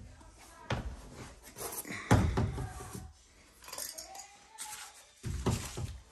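Scattered handling noises of hand tools: light metallic clinks and a few dull thumps, the loudest about two seconds in and another just past five seconds.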